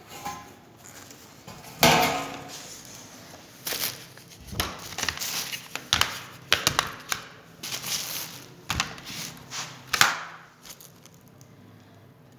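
Irregular knocks, clicks and clatters of hard objects being handled, the loudest about two seconds in and again near the end.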